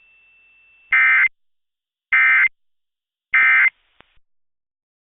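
Emergency Alert System end-of-message data bursts: three short, identical buzzing digital chirps about 1.2 s apart, the coded signal that closes an EAS test broadcast.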